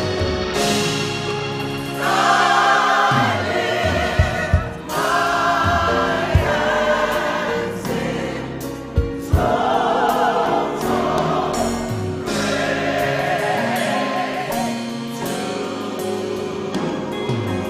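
Gospel choir singing in harmony, the voices rising and falling in long sung phrases over sustained backing notes, with a few sharp beats along the way.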